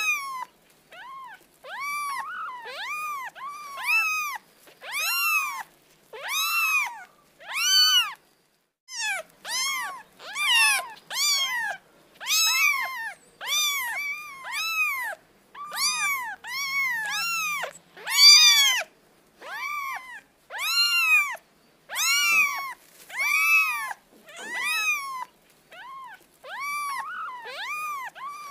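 Kitten mewing over and over, about one high call a second, each rising and then falling in pitch, with a short pause about eight seconds in.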